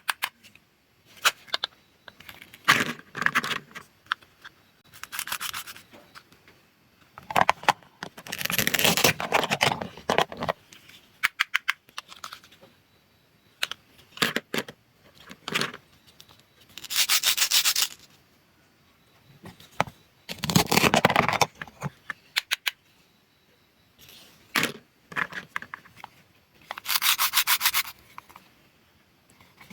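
Toy fruits and vegetables being cut apart with a toy knife, their halves pulled apart at the Velcro joins: a series of short rasping rips about a second long, with light taps and clicks of the pieces and knife between them.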